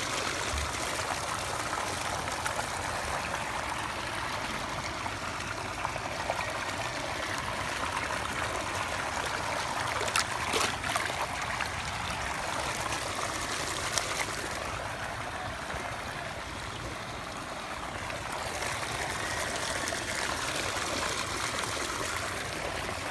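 Water in a sea turtle tank, running and splashing steadily like a stream, with a few sharp clicks near the middle.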